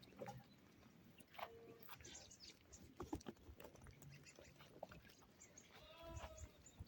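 Very quiet stretch with scattered soft clicks, a short faint call about one and a half seconds in, and a faint bleat near the end.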